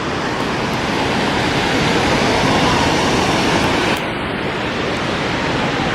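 Ocean surf washing on the shore with wind on the microphone: a steady rush that swells over the first few seconds and eases about four seconds in.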